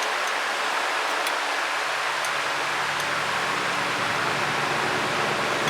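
Steady hiss of background noise, with a low hum coming in about a second and a half in and a few faint ticks.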